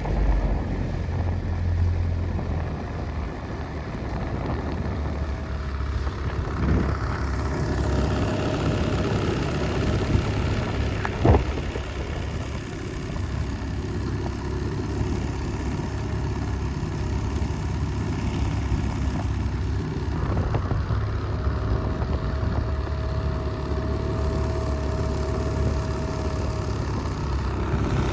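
Outboard motor of a coaching launch running steadily at low speed, with a single sharp knock about eleven seconds in.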